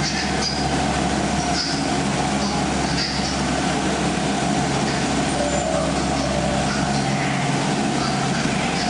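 Tour boat's motor running steadily, a low hum, with a steady higher held tone over it.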